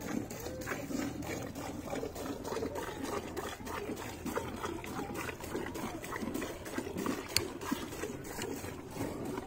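Milk squirting into a pail in a run of short streams as a cow is milked by hand, with one sharper click late on.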